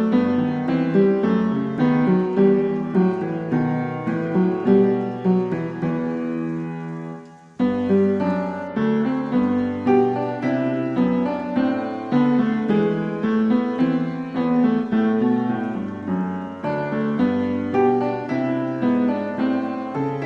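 Piano background music, a flowing run of notes. About seven and a half seconds in, the music fades briefly and then starts again suddenly.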